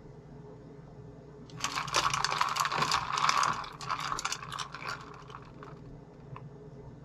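Ice cubes rattling and clinking against a plastic cup as a thermometer probe stirs the ice water: a rapid run of clicks starting about a second and a half in and lasting some four seconds, then one last click.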